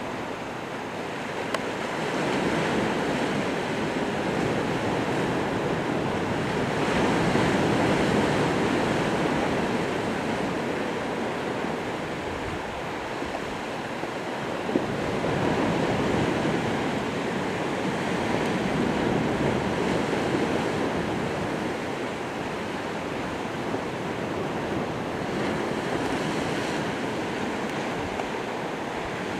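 Choppy sea washing and breaking, swelling and easing every few seconds, with wind buffeting the microphone.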